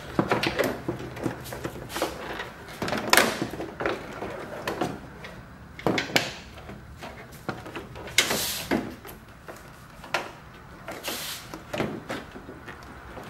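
Plastic headlight assembly knocking, clicking and scraping against the car's front end as it is handled and worked into its mounting opening. The knocks and clicks are irregular, with a few longer scrapes.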